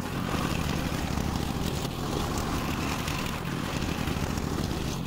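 Husqvarna garden tiller (cultivator) engine running steadily under load as its tines chop up compacted, never-worked soil.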